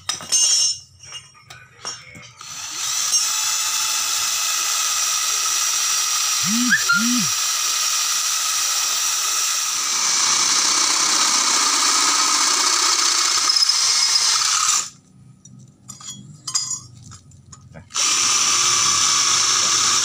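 Kova 20-volt cordless drill boring through thick steel plate: a steady high grinding whine that runs for about twelve seconds, gives way to a few clicks and knocks, then starts again near the end.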